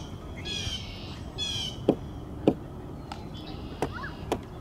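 A bird calling: three short calls in the first two seconds. Then two sharp thumps of a soccer ball being kicked, the loudest sounds, and two fainter knocks near the end.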